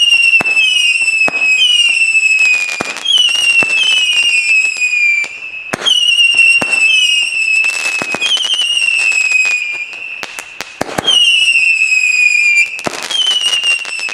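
Lesli Airdance whistling fireworks lit on both fuses. Shrill whistles follow one another quickly and overlap, each sliding a little down in pitch, mixed with crackling and sharp pops. The whistling thins out for a couple of seconds about ten seconds in, then starts again.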